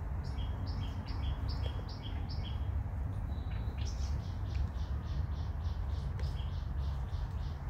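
A bird singing a repeated two-note phrase, a higher whistled note followed by a lower one, about six times in quick succession. After a short pause it resumes with a faster run of repeated notes. A steady low rumble runs underneath.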